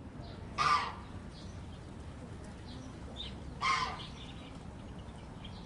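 A large bird gives two short, harsh calls, about three seconds apart, over a steady background hiss. Fainter, higher calls come between them.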